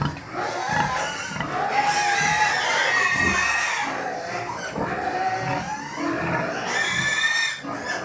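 Pigs squealing and grunting: long pitched squeals, the loudest from about two seconds in and again near the end, over shorter low grunts.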